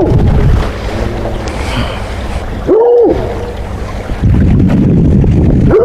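A coonhound giving short yowling calls, rising then falling in pitch, three times, over a heavy low rumble of wind and water noise from the boat.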